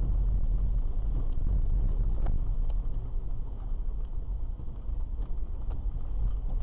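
A car driving along a road, its low road and engine rumble heard from inside the cabin, with a few faint ticks.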